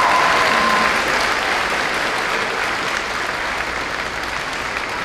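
Audience applauding, the clapping slowly dying away; a held cheer from the crowd ends about a second in.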